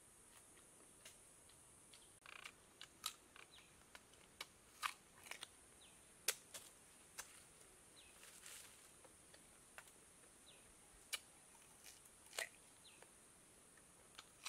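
Faint, irregular crisp clicks and crunches of green ambarella fruit being bitten, chewed and handled, with a faint steady high hiss.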